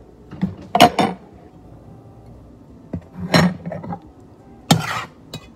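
A metal utensil clinking and scraping against a metal cooking pot and bowls as pasta is served out: a pair of sharp clinks about a second in, another around three and a half seconds in, and a last one near five seconds.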